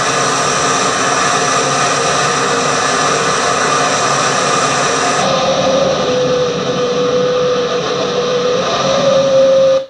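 Jet engine and airflow noise inside the cockpit of a Su-25 ground-attack jet in flight: a steady, loud roar with whining tones. About halfway through, the high hiss drops away and a steady whine comes up, then the sound cuts off suddenly near the end.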